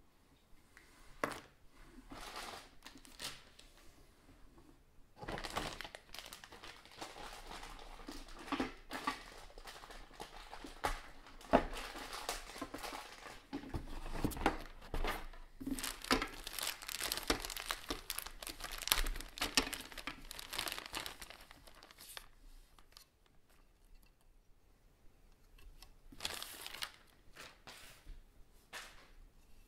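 Clear plastic parts bags crinkling and rustling as they are handled and lifted out of a cardboard kit box, with the box shifted and a few sharp clicks. The rustling comes in bouts; it is busiest through the middle and thins out near the end.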